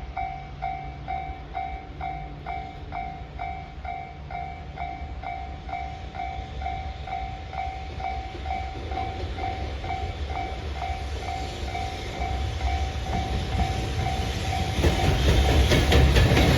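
Japanese level-crossing warning bell ringing its electronic two-tone ding about twice a second. An approaching freight train, an EF210 electric locomotive hauling container wagons, grows louder in the last few seconds. Its rumble and wheel clatter swamp the bell near the end.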